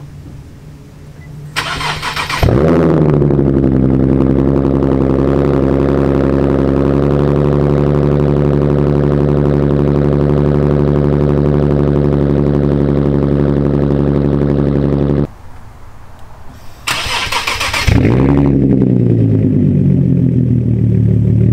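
Nissan 370Z's 3.7-litre V6 cold-started through a full-titanium Tomei single-exit cat-back exhaust. The starter cranks briefly, then the engine catches with a rev flare and settles to a steady idle. After a cut it is started again warm, cranking, catching with another flare and settling to idle near the end.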